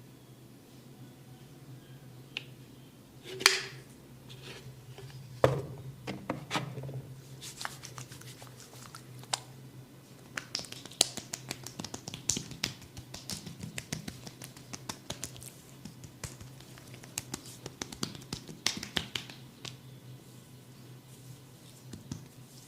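Head-and-neck massage sounds: a long run of irregular sharp taps and clicks, a few loud ones early and then a dense patter, over a steady low hum.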